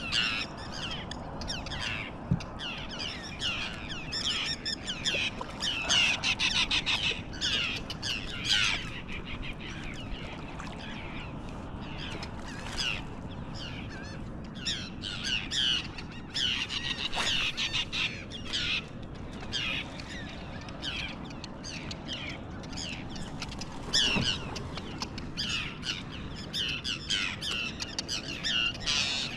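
A flock of gulls, the anglers' "liar birds", calling over and over, many overlapping calls, busier in a few stretches.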